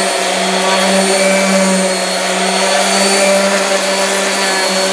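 Electric random orbital sander running steadily on a fibreglass boat hull, sanding cured blister filler flush. It makes an even motor hum under a hiss of abrasive on the hull.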